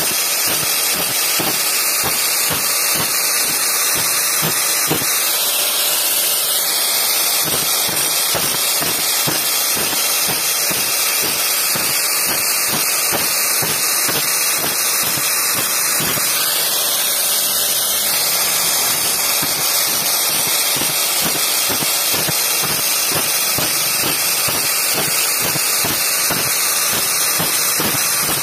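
Old tile cutting disc spinning on a power tool and grinding the teeth of a bandsaw blade: a steady, loud hissing grind with a light pulse a few times a second.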